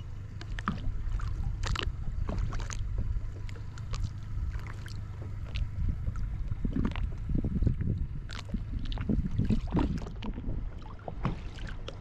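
Small waves lapping and slapping irregularly against a boat's hull, over a steady low rumble.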